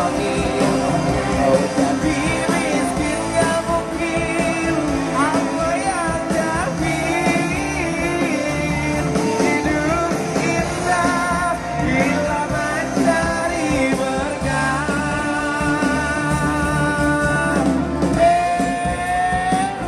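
Live band music through outdoor PA speakers: a lead singer over the band, holding long notes with vibrato.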